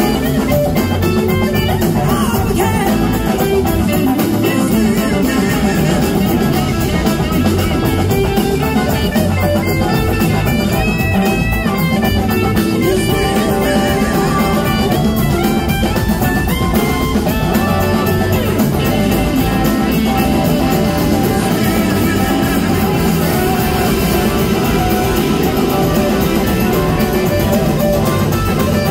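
Live blues-rock band playing loud and steady: electric guitars over bass and drum kit.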